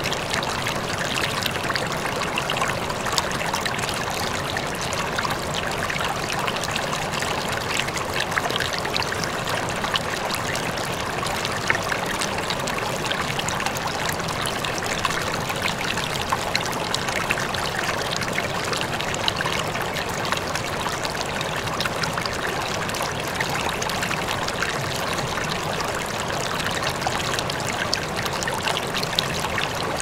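A close-up river: water flowing steadily over rocks, with a continuous babbling rush dotted with many small splashes and droplet plinks.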